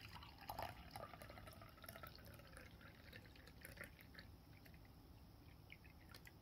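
Milky banana drink poured from a plastic bottle into a glass tumbler: a quiet pour and splash, its pitch rising slightly as the glass fills, thinning to a few drips near the end.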